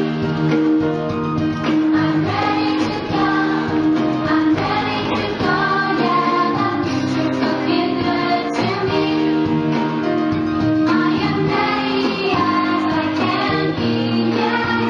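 A song with singing over sustained backing notes, the music for a children's hand-motion dance.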